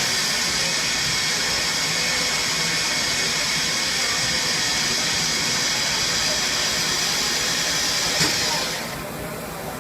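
GE FONG G-206 Swiss-type CNC lathe cutting a bone-screw thread with its thread whirling attachment: a steady high-pitched hiss. A short click comes near the end, and the high hiss then stops, leaving a lower steady machine hum.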